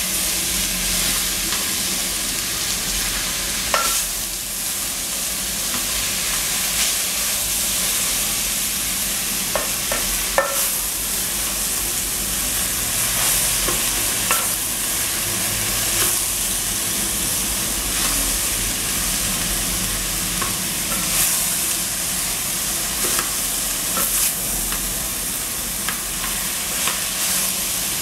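Shredded cabbage frying in an aluminium pot: a steady sizzling hiss, with scattered clicks and scrapes of a wooden spoon stirring it against the pot.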